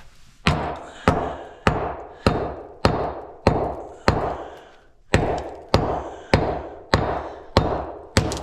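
Hammer driving nails into 2x4 framing lumber: a steady run of about a dozen blows, a little under two a second, each ringing out briefly, with a short pause about halfway through.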